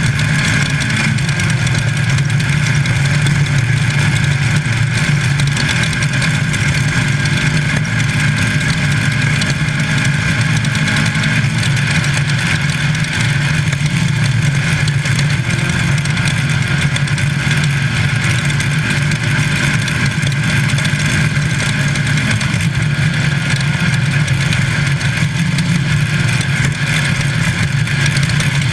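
Class 5 Baja Bug race car's air-cooled VW engine running steadily and loud while the car is under way, heard from inside the car.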